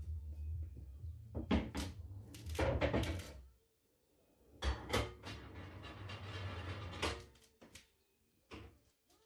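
Pool balls rolling across the table after the break, with a run of sharp clacks as they strike one another and the cushions in the first few seconds. A second cluster of knocks and rolling follows about halfway through, then a few isolated clicks.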